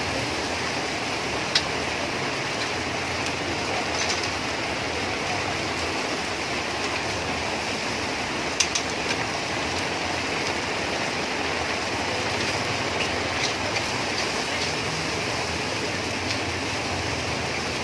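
Steady rushing hiss of noodles frying in a steel wok over its burner, broken by a few sharp clinks of the metal spatula against the wok.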